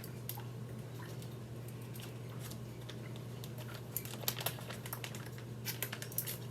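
Faint, scattered light clicks and taps of kitchen items being handled, more of them in the second half, over a steady low hum from a washing machine running in the background.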